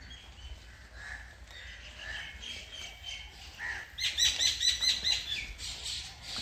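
Several birds chirping in the trees. About four seconds in, one bird gives a loud, quick run of repeated notes, about five a second, lasting just over a second.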